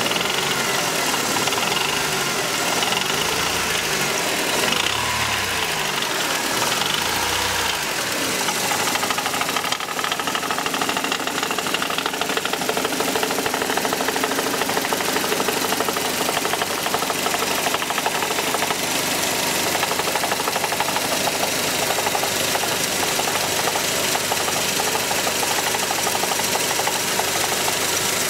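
Mercedes-Benz M102 2.3-litre four-cylinder engine running at low revs with a fast, even rattling knock; the engine speed rises and falls a few times over the first eight seconds or so, then holds steady. The rattle is not from the exhaust, heat shields or flex plate, and a mechanic suspects a bottom-end fault such as a worn big-end bearing.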